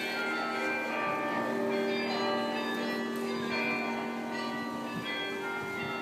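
The carillon bells of the Belfry of Bruges ringing a tune, with bells struck one after another and their notes overlapping as they ring on.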